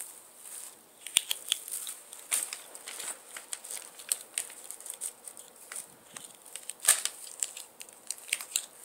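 Christmas wrapping paper crinkling and crackling in quick, irregular snaps as a kitten paws and pounces on it. The loudest crackle comes about seven seconds in.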